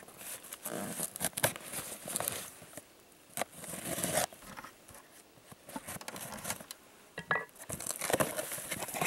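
Fixed-blade knife slicing and scraping along the packing tape of a cardboard box, with tape tearing and scratchy clicks in bursts. Near the end the cardboard flaps rustle as the box is worked open.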